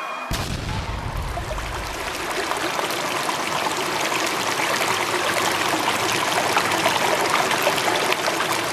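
Running water, like a stream, with a dense, even rushing sound that starts abruptly about a quarter of a second in and grows slightly louder.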